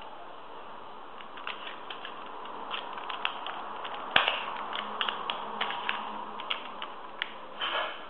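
3x3 Rubik's Cube being turned by hand: irregular plastic clicks and clacks of its layers, starting about a second and a half in, with one louder clack about four seconds in.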